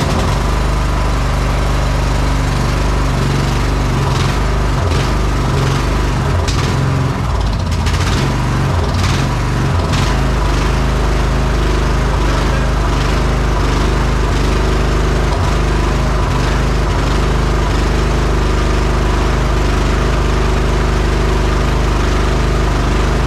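Riding lawn mower's 15 hp Briggs & Stratton engine running loudly just after starting, fed by a carburetor borrowed from a 12 hp engine. It runs a little unevenly, with some rattling clicks, for the first ten seconds or so, then settles into a steady run.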